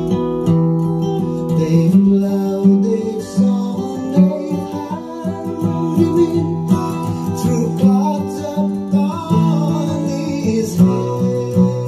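Recorded folk-rock song playing loud over hi-fi loudspeakers in the room: strummed acoustic guitar with a voice singing.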